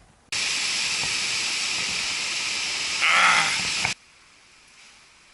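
A loud, steady hiss, like escaping air or spray, that starts suddenly and lasts about three and a half seconds. It swells into a louder, rougher rush for its last second, then cuts off abruptly.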